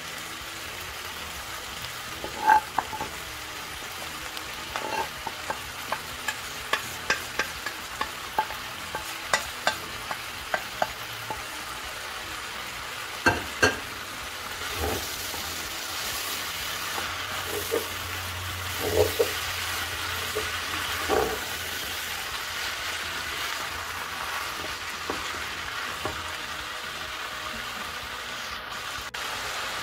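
Mixed vegetables sizzling in a non-stick pan while a wooden spatula stirs them, with frequent short knocks and scrapes of the spatula against the pan. The sizzle gets brighter and louder about halfway through.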